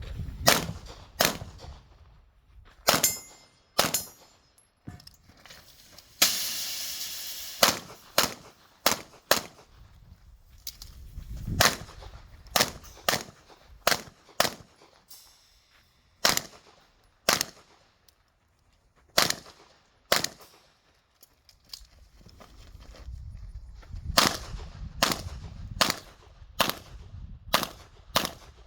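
Handgun shots fired in single shots and quick pairs across a practical-shooting stage, about two dozen in all, with short pauses between strings. About six seconds in there is a second-long rush of noise.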